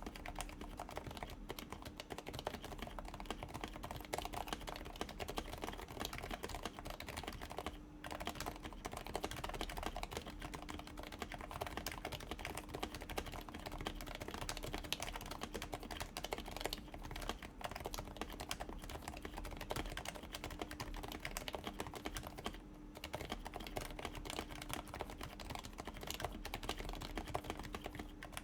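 Continuous fast typing on a Happy Hacking Keyboard Professional with aged, lubed and silenced 45 g Topre electro-capacitive switches, a dense run of soft keystrokes. The typing pauses briefly twice, about eight seconds in and near twenty-three seconds.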